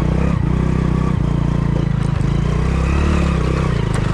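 Hero Splendor motorcycle's single-cylinder four-stroke engine running steadily, a low even beat.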